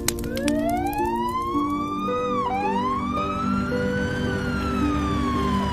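Ambulance siren wailing: a slow rising wail, a sudden drop about halfway, then a rise and a long falling tone. Soft background music plays underneath.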